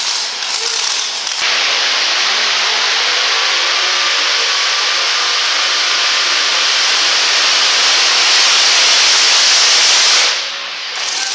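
Super modified two-wheel-drive pulling truck's supercharged engine at full throttle, dragging the weight sled. It comes in suddenly about a second and a half in, the revs climb and then hold steady in a loud, hissing exhaust blast, and it drops off suddenly near the end.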